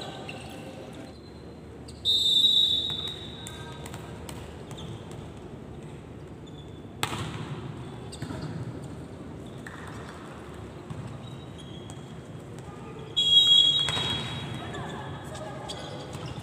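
Volleyball rally in a sports hall: a referee's whistle blows about two seconds in and again near the end. Between the whistles comes a sharp ball strike about seven seconds in, with scattered knocks of ball and feet on the court and players' voices.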